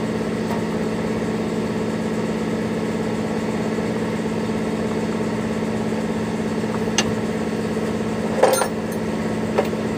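Diesel truck engine idling steadily, with a few sharp metallic knocks about seven seconds in and near the end.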